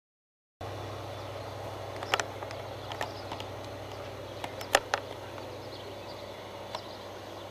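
Outdoor background noise with a steady low hum and a few scattered sharp clicks, starting after a brief silence.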